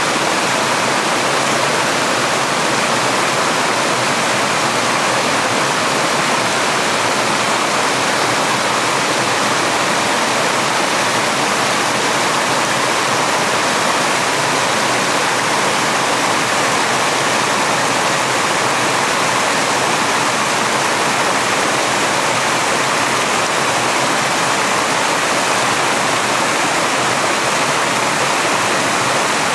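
Forest brook running over bedrock slabs and spilling down a small cascade between boulders: a loud, steady rush of water.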